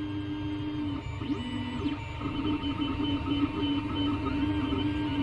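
Creality Ender 3 3D printer running a test print: its stepper motors whine in steady tones as the axes move, and the pitch pattern shifts about one and two seconds in as the moves change.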